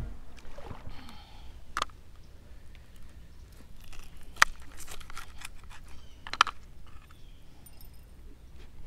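A knife cutting fresh shad into bait chunks on a plastic cutting board. It makes soft cutting and handling noises, with a few sharp knocks spread out where the blade strikes the board.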